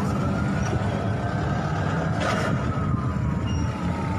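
An emergency vehicle's siren wailing, its pitch slowly rising and then falling, over a steady low engine rumble.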